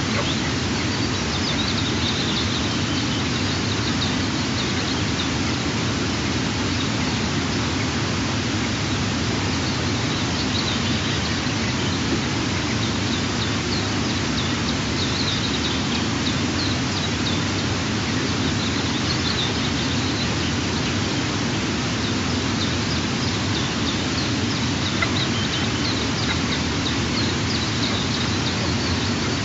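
A steady rushing hiss of outdoor noise, with faint, short high-pitched bird calls now and then over it.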